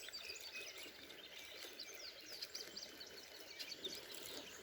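Wild birds chirping with many short, quick notes, faint over a steady background hiss of outdoor noise.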